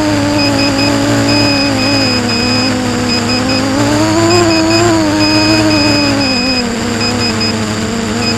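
Brushless motors of a Quadrysteria Mini Mamba V2 FPV racing quadcopter spinning at low speed, a whirring hum whose pitch drifts up and down, with a high electronic beep sounding on and off.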